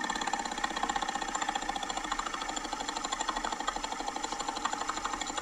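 A car's HVAC blower motor at the end of its life, running with a fast, even rattle, like a fan hitting something as the worn blower rattles around. Played back through a phone speaker, so it sounds thin with no bass.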